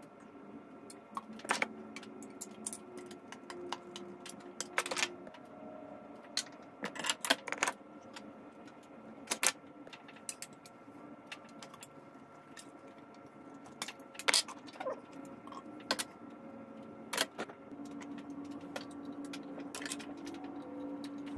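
White PVC pipe lengths and tee fittings being handled and fitted together: irregular sharp plastic clicks and knocks, every second or two, over a faint steady hum.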